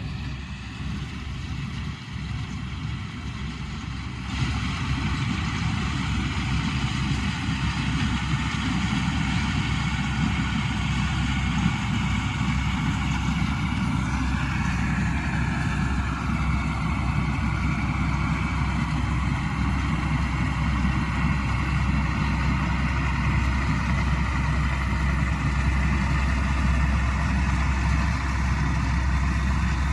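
Avtar combine harvester running steadily while cutting paddy. It gets noticeably louder about four seconds in.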